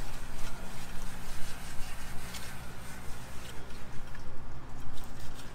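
Knife cutting through the flesh of a large swordfish behind its gills, soft wet squishing and faint ticks over a steady low hum.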